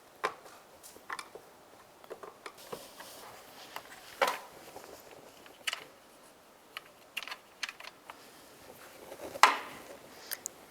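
Scattered light clicks and taps of a Phillips screwdriver working out the door-panel screws, with a sharper knock about four seconds in and another near the end.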